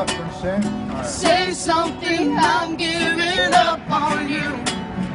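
A voice singing a melody with wavering pitch over a strummed acoustic guitar.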